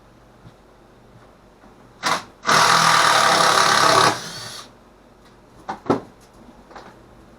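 A small power tool's motor, such as a drill or driver, gives a short blip about two seconds in, then runs for about a second and a half, followed by a few light clicks.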